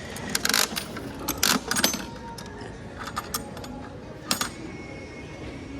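Metal clinks and clicks of quarters being handled and worked through a 25-cent toy vending machine's coin mechanism, in four short bursts.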